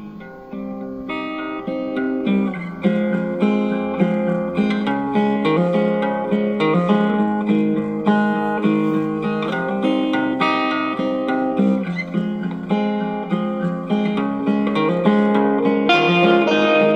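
Guitar music played through a small 1-watt single-PCL82 valve amplifier and its built-in 3 W speaker. It fades up over the first two to three seconds as the volume knob is turned, then plays at a steady level.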